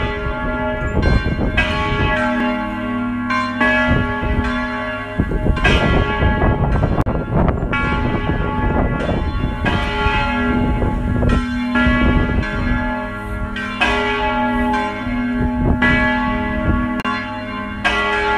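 Several church bells ringing together, the strikes coming irregularly and overlapping, each leaving a long ringing tone.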